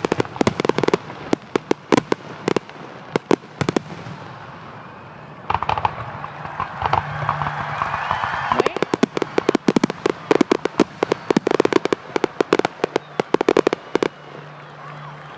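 Fireworks display finale: a rapid barrage of aerial shell bursts, many bangs a second, with a crackling stretch midway. The barrage stops suddenly about a second before the end.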